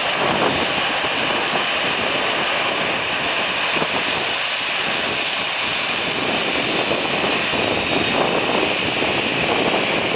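Airbus A320 jet engine running at idle: a steady whine and rush of air with no change in level.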